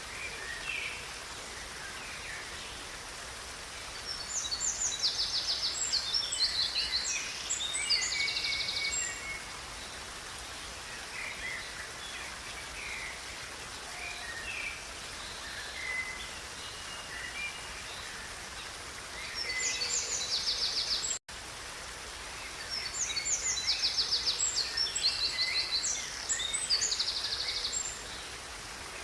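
A songbird sings fast trilled phrases over the steady rush of a river, in two long bouts of song, about 4 s in and again from about 20 s in, with quieter calls between.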